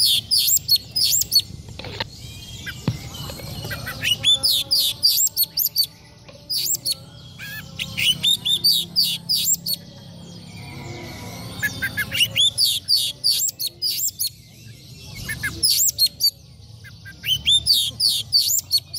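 Oriental magpie-robin (kacer) singing: loud phrases of rapid, sharp, high whistled notes lasting one to two seconds, repeated again and again with short gaps, over a low steady hum.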